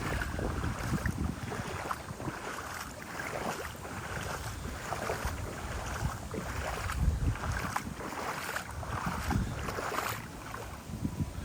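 Footsteps wading through shallow floodwater, each step a slosh and splash, at a steady walking pace, with some wind on the microphone.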